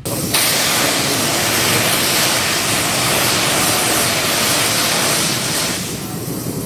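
Loud, steady hiss of steam venting from a live-steam scale steam locomotive, starting suddenly and dying away after about six seconds.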